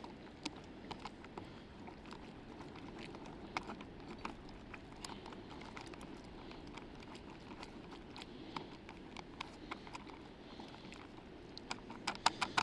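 A spoon stirring a rehydrating pasta meal in its foil pouch: scattered light clicks and crinkles, a quick flurry of them near the end, over a steady low background rush.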